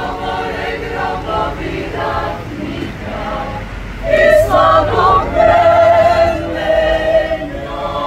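Mixed choir of men's and women's voices singing sustained chords, louder from about four seconds in.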